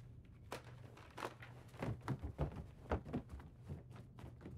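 A series of soft, irregular thumps and taps, about a dozen, over a faint steady low hum.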